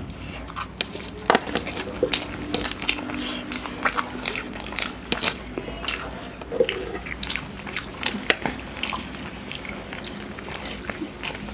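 People eating: irregular bites, crunches and chewing, with many short sharp clicks through the whole stretch.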